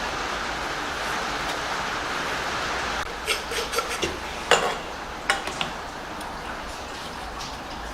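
A steady hiss that cuts off abruptly about three seconds in, followed by a handful of sharp clicks and knocks, like tools or parts being handled in a workshop.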